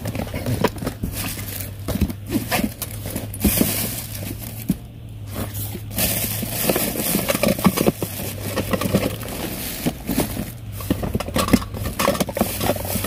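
Rummaging through a bag: rustling, crinkling plastic and small knocks and scrapes of containers being handled, over a steady low hum.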